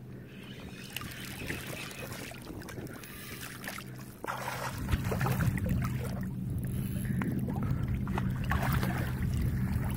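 Low, steady hum of a boat's motor that grows louder about four seconds in, with scattered light clicks over it.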